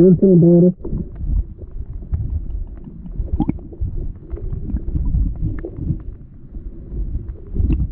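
Underwater river sound picked up by a submerged camera: a steady low rumble with scattered small clicks and ticks. It opens with a brief, loud, muffled voice heard through the water.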